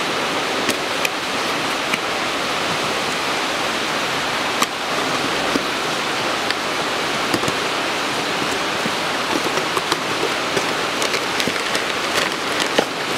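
Cardboard box and plastic bag of a new transmission filter being opened and handled, with scattered crackles and rustles that grow busier near the end, over a steady loud hiss.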